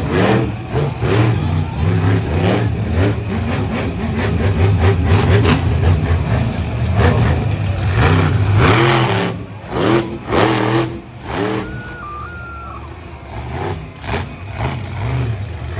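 Monster truck engine revving hard, its pitch repeatedly rising and falling with the throttle. It eases off to a lower level about two thirds of the way in.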